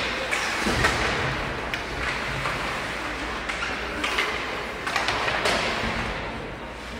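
Ice hockey play in a rink: skate blades scraping the ice under a steady noisy wash, with several sharp clacks and thuds of sticks and puck scattered through.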